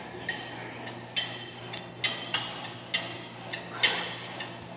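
Sharp metallic clicks and clinks of gym equipment, a series of single ticks coming irregularly about once a second.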